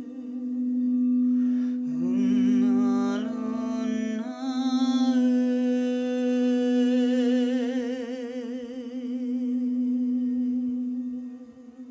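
Crystal singing bowls ringing, one steady low tone held throughout with wavering, beating overtones above it. From about two seconds in, a humming voice joins with pitches that slide upward and then settle into a long held tone.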